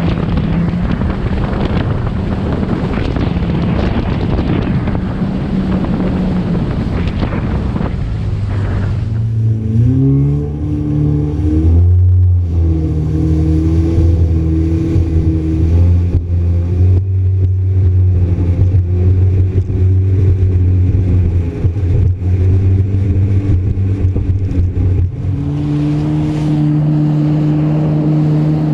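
Jet ski engine running at speed across the water. For the first eight seconds or so a loud hiss of wind and spray covers a low engine note; then the engine note rises and holds at a steady high pitch, wavering slightly.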